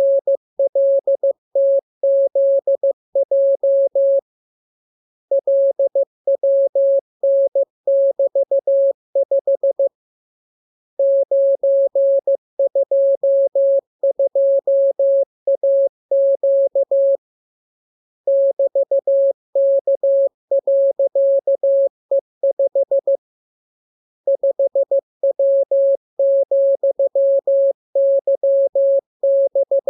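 Morse code sent as a single steady audio tone, keyed on and off in rapid dots and dashes. The characters come in runs of several seconds, with pauses of about a second between runs.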